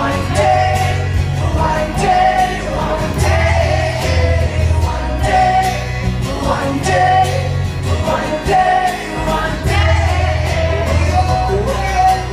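Live pop performance: a singer holding melodic lines over acoustic band accompaniment with a heavy, steady bass and a regular beat, heard as a loud concert-hall recording.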